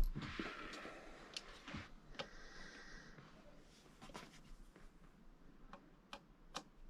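A knock at the start, then faint rustling for a few seconds and scattered light clicks of small parts being handled.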